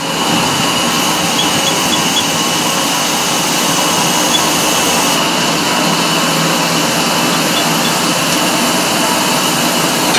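Steady, loud hiss and roar of steam on the footplate of a class 19D steam locomotive, with a thin high whistling tone running through it and no beat of exhaust.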